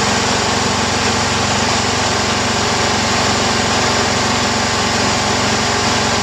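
John Deere GT262 garden tractor's engine running steadily while the tractor moves along pushing snow with its front blade.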